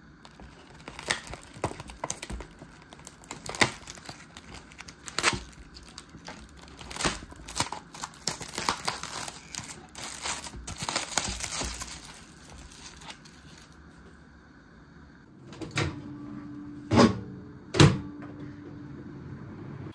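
Plastic bento packaging being handled and opened: crinkling and tearing of plastic film with scattered sharp clicks. It quiets down near the end, where three sharp knocks follow over a low steady hum.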